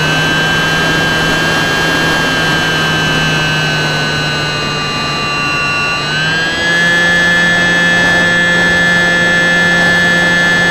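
Electric motor and propeller of a Stryker RC flying wing whining, heard from a camera on the plane with wind rushing over the microphone. The whine sags slightly over the first few seconds, then steps up as the throttle opens about six seconds in and holds.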